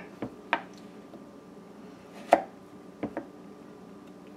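Chef's knife cutting through set coconut fudge and knocking on a wooden cutting board: about five sharp knocks, the loudest a little over two seconds in, with a quick pair just after.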